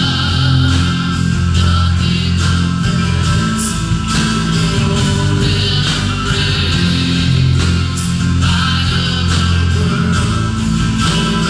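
Live worship band playing an instrumental passage: strummed acoustic and electric guitars over keyboard, with a steady beat.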